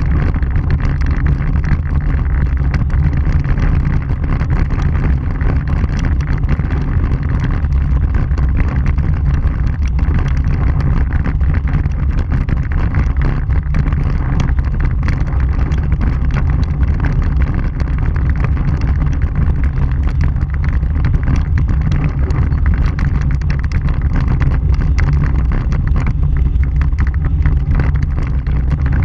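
Vehicle driving on a rough gravel dirt road, heard from a camera on its front bumper: a steady, loud low rumble of tyres and running gear, with many small clicks and crunches of stones.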